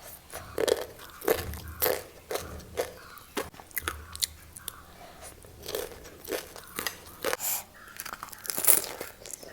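Mouth sounds of chewing a crisp snack: loud, irregular crunches a few times a second, with softer chewing between them.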